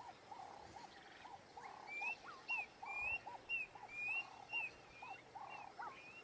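Male Klaas's cuckoo giving its territorial call: a series of clear, sweet whistled notes, about two a second, starting about two seconds in. A lower repeated call from another animal carries on underneath.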